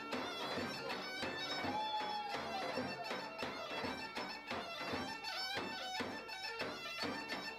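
Bulgarian gaida, a goatskin bagpipe, playing a melody of quickly changing notes over a steady drone.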